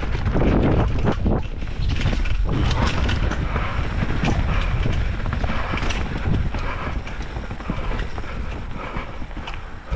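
Pole Stamina 180 mountain bike, with 180 mm of rear travel, ridden down a rough trail: tyres on dirt and a steady clatter of chain and frame rattles over bumps, with wind rush on the microphone. The clatter eases off somewhat near the end.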